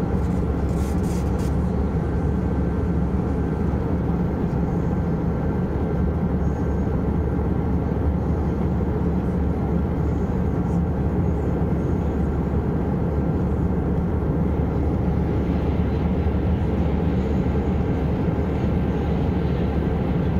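Airbus A321-200 cabin noise in flight: the steady, even low roar of the engines and airflow.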